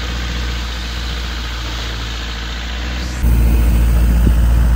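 Longtail boat engine running steadily under way, a constant low rumble with wind and water rushing past. About three seconds in the sound cuts abruptly to a louder, deeper engine rumble.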